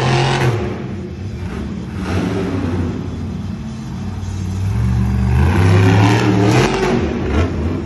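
Monster truck's supercharged V8 revving hard in surges as it drives around an arena dirt floor, with a loud burst right at the start and the strongest revving about five to seven seconds in.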